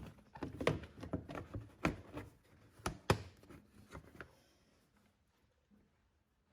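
Splash guard cover being handled and fitted back into place in the wheel arch: a run of sharp clicks and knocks that stops about four seconds in.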